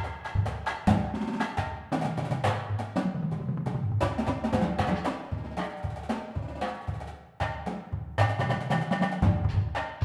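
Marching drumline cadence: snare drums, tenor drums and bass drums play a busy, continuous rhythm with rolls, the bass drums sounding at several different pitches.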